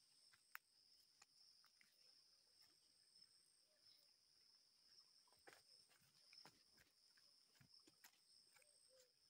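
Faint steady high-pitched insect chorus, like crickets trilling, with scattered light clicks and rustles of footsteps on dry leaf litter.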